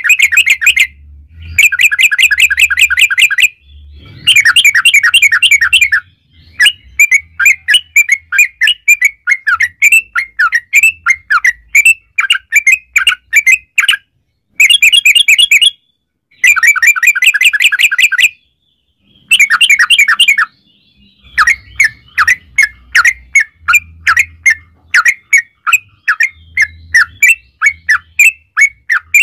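Yellow-vented bulbul (trucukan) singing long, rapid runs of chattering notes, in bursts of a few seconds broken by short pauses.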